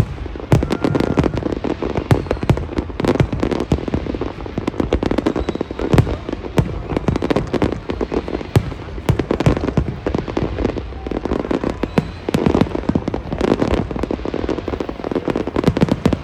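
Fireworks display: rapid, continuous bangs and crackling pops from bursting aerial shells over a steady low rumble.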